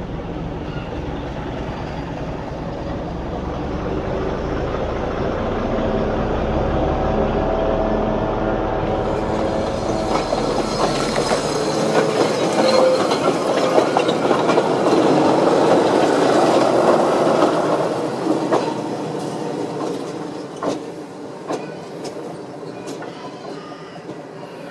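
A train running on rails, growing louder to a peak about halfway and then fading away, with sharp wheel clicks over the rail joints near the end.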